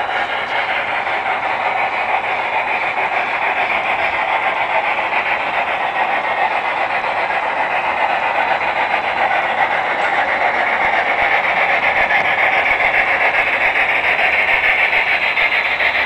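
Large-scale model steam locomotive running along the track toward the microphone, its steady running noise growing louder as it approaches. Near the end its wheels click as it rolls onto the hand-spiked switch.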